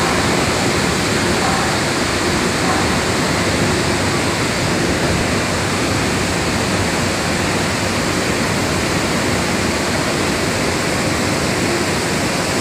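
Steady, loud roar of palm oil mill machinery running: an even rushing noise with a faint low hum underneath.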